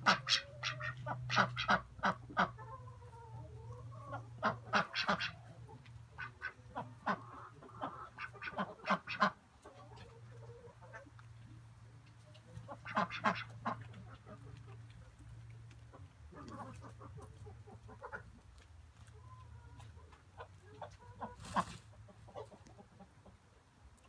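Domestic ducks quacking in quick runs of short, repeated quacks, thickest in the first ten seconds and more scattered later. A low steady hum lies underneath and fades out about twenty seconds in.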